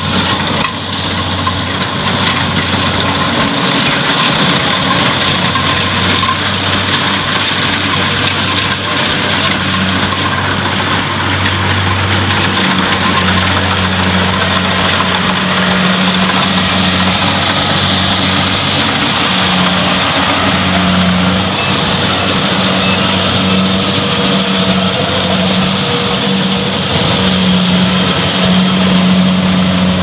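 Kubota rice combine harvester's diesel engine running steadily as the machine cuts and threshes rice, a continuous low mechanical hum.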